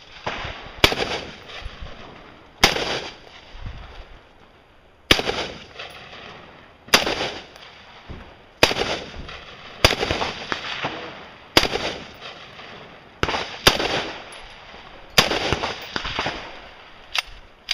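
Rifle shots fired one at a time at an irregular pace, about eleven in all, usually one to two seconds apart with one quick pair, each followed by a short echo.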